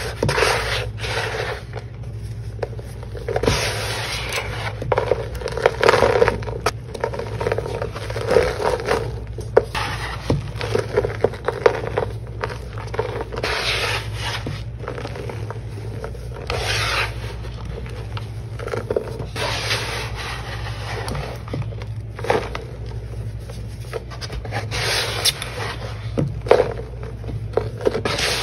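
A hand sweeping and pressing through loose crushed Ajax and Tydbol cleaning powder in a plastic tub. It makes repeated, irregular gritty scraping strokes as the palm and fingernails drag the powder across the tub's floor.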